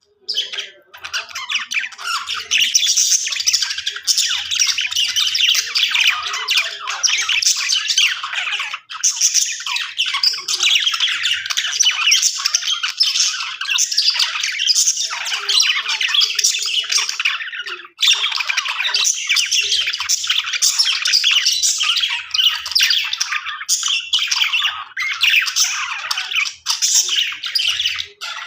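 Budgerigars chirping and squawking in a dense, nonstop chatter of high warbling calls, with brief pauses about nine and eighteen seconds in.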